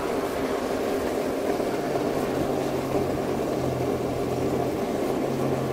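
Water rushing steadily through a hose into a portable water bladder once a kink has been cleared, with a low steady hum joining about two seconds in.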